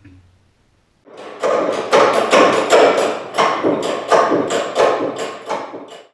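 A rapid run of knocks or strokes, about two to three a second, starting about a second in and cutting off suddenly at the end.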